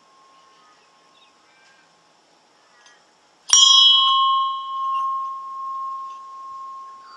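Small hand-made, sand-cast solid brass bell struck once by its knocker about three and a half seconds in: a bright clang whose high overtones die away within about a second, leaving one clear tone ringing on with a slow swell and fade. Before the strike, the faint tail of an earlier ring fades out.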